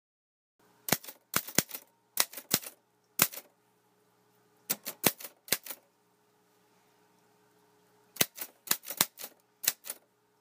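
Sharp clicks in short, irregular groups of two or three, coming in three bursts, over a faint steady hum.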